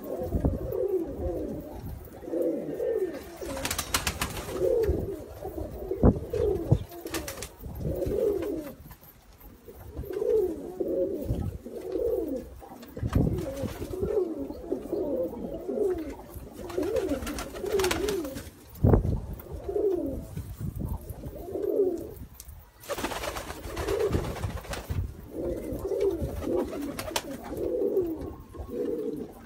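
Several Trakya makaracısı pigeons, a black Turkish domestic breed, cooing over one another in a steady run of overlapping rising-and-falling coos. A few short bursts of rustling noise break in now and then.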